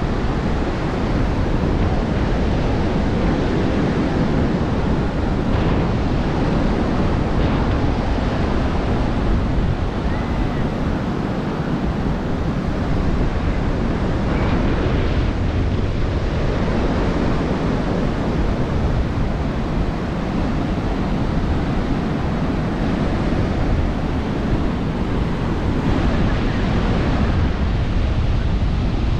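Surf washing onto a sandy beach, a steady rush of waves, with wind rumbling on the microphone.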